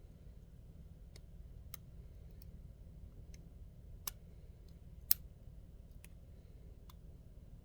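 Sparse, sharp metallic clicks of a lock pick working the pins inside a lock, about nine irregular ticks with the loudest about five seconds in.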